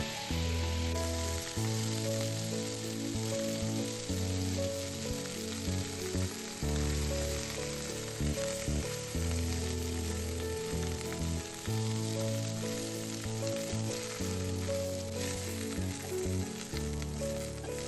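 Food sizzling as it fries in hot oil in a pan, a steady hiss, under background music with a changing bass line.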